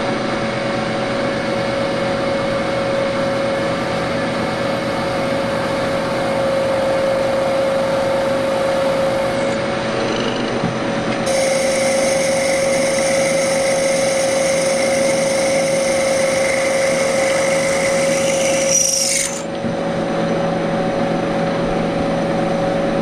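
Milling machine spindle running as it drills a hole in a bright steel bar, first with a centre drill and then a twist drill cutting the metal, under a steady motor whine. About eleven seconds in the higher cutting sound changes abruptly.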